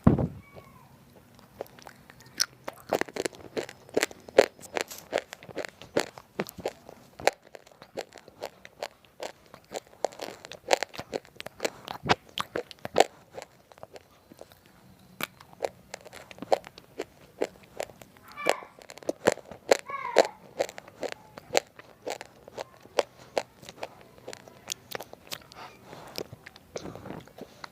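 Close crunching and chewing of roasted multani mitti (Fuller's earth) chips, with dense, irregular crisp crunches throughout.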